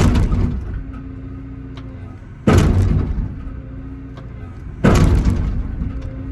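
Excavator bucket slamming down onto a concrete slab to break it up: three heavy blows about two and a half seconds apart, with the machine's diesel engine running steadily between them.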